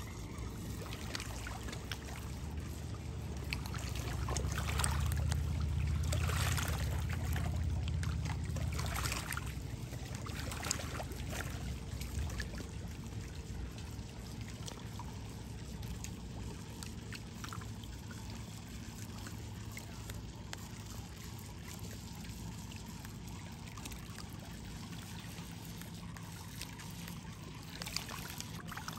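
Small waves lapping and trickling against a rocky lakeshore. A low rumble swells about four seconds in and dies away by about ten seconds.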